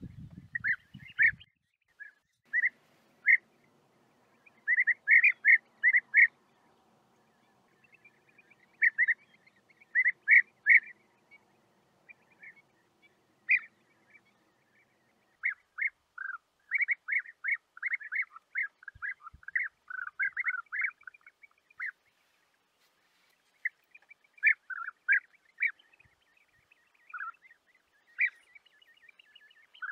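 European bee-eaters calling: short calls given singly and in quick runs of several, coming thicker and faster in the second half, some dipping lower in pitch.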